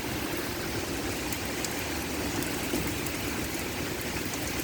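Heavy rain pouring steadily in a thunderstorm, with wind gusting across the microphone.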